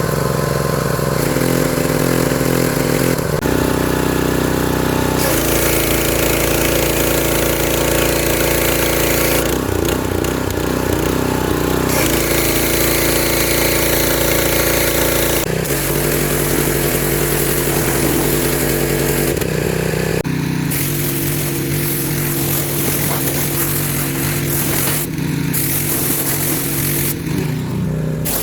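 Husqvarna PW3200 gas pressure washer's engine running steadily, heard across several cut-together stretches, its pitch shifting slightly at each cut. A high hiss is louder in some stretches than others.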